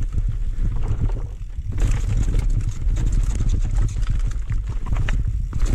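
Mountain bike riding fast down a dirt forest trail: a steady low rumble of wind and tyres on the camera microphone, with the bike's chain and frame clattering over bumps. The rattle briefly drops away twice.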